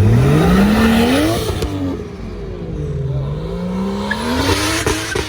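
Car engine revving hard: its pitch climbs steeply for about a second and a half, falls away, then climbs again a second time.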